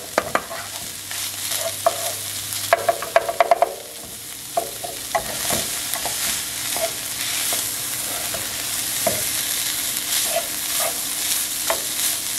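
A utensil stirring through a seasoned meat mixture in a pan, knocking against the pan with a quick run of knocks about three seconds in, over a steady sizzle of frying.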